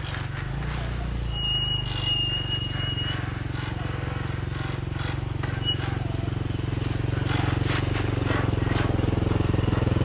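Off-road go-kart buggy's small engine running at low speed, getting steadily louder as the kart drives toward the microphone.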